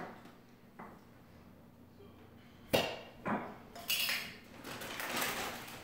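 Kitchen clatter: two sharp knocks about three seconds in, then a run of clinks and rattles of dishes and utensils while a stuck sauce-jar lid is worked at.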